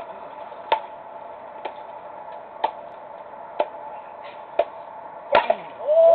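Sharp clicks about once a second in an even, ticking rhythm, the loudest near the end, over a steady low background hum.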